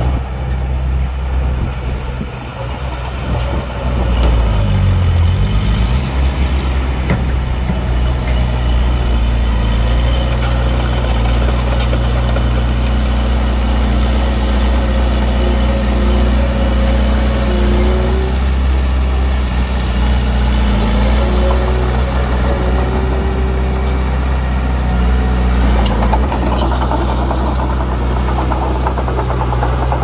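Heavy-equipment diesel engine running steadily. About four seconds in, its note rises and grows louder, then holds.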